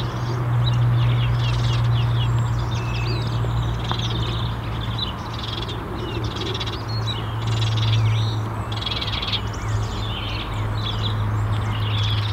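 Common starling singing a running medley of whistles, short chirps and rattling chatters, over a steady low hum.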